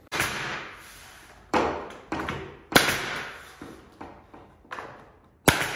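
Pneumatic nail gun firing nails into crown molding, about eight sharp shots at uneven intervals, each with a short fading tail.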